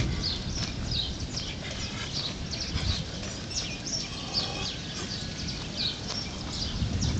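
Small birds chirping over and over, short high calls that each drop in pitch, over a steady low rumble.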